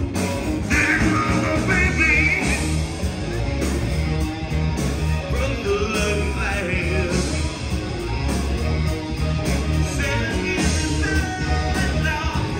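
A rock cover band playing live: electric guitars, bass and drums with a high, wavering lead line on top.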